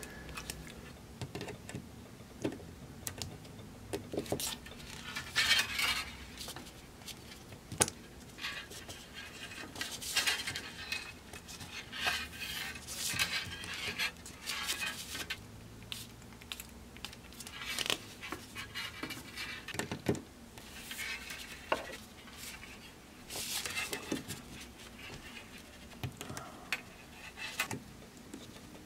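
Small pliers working copper wire against a paper template on a desk: irregular light metallic clicks, taps and scrapes as the wire is gripped, bent and flattened.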